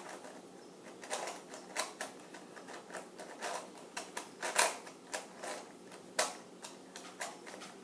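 Rubik's cube being twisted by hand: an irregular run of clicks and clacks as the layers turn, a few sharper than the rest.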